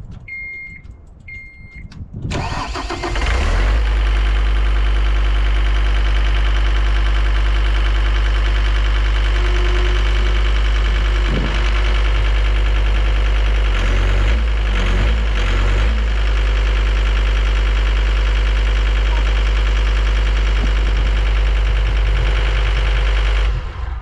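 Two short electronic warning beeps, then the Deere 326D skid steer's diesel engine cranks briefly, catches and runs steadily, with a brief shift in its note about two-thirds of the way in. The engine sound cuts off suddenly near the end.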